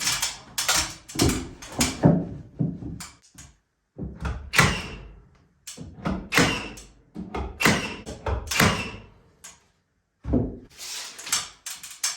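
Irregular wooden knocks, thunks and scraping, about a dozen in quick succession with short pauses between, as rough-cut pine boards are handled and fitted against the wall.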